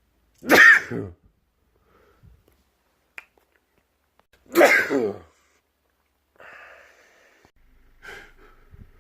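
Two loud sneezes about four seconds apart, each a sharp burst whose voiced pitch falls away, followed by a softer breath.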